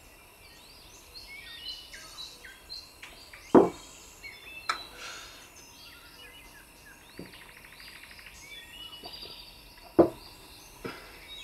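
Background of birds chirping and insects, with a short buzzing trill about two-thirds of the way through. Two sharp knocks stand out, about 3.5 s and 10 s in, the second as a drinking glass is set down on the table.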